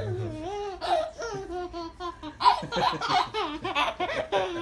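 Baby laughing in a run of short, high-pitched bursts that rise and fall, tickled by a dog licking its toes.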